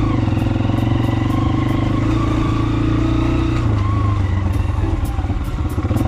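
Motorcycle engine running under way, heard from on board the bike. Its note drops and turns rougher about two-thirds of the way through.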